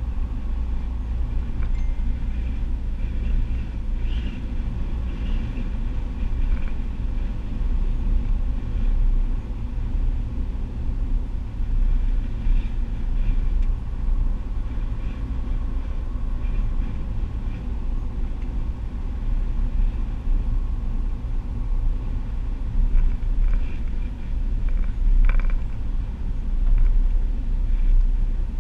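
Steady low rumble of a car driving at road speed, engine and tyre noise heard from inside the cabin, with a few faint clicks.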